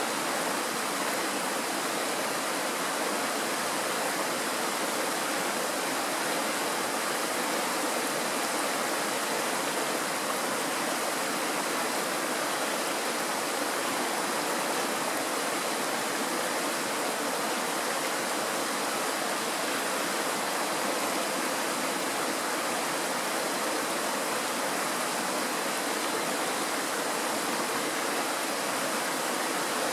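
Shallow, rocky mountain stream rushing and splashing over stones and small rapids: a steady, even water noise.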